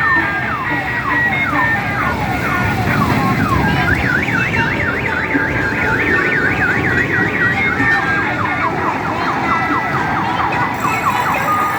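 Electronic siren cycling through patterns: repeated falling whoops about twice a second, then a fast up-and-down warble for a few seconds, then quicker falling whoops, over a low rumble.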